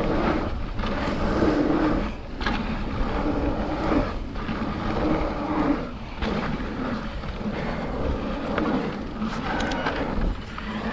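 Wind buffeting the microphone and the rush of a mountain bike rolling down a dirt trail, swelling and easing every second or two, with a few sharp rattles of the bike near the end.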